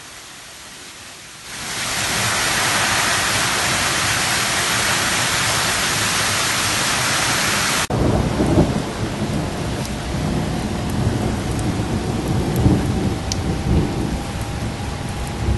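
Heavy rain coming down in a steady downpour. About 8 seconds in it cuts abruptly to rain with low thunder rumbling through it.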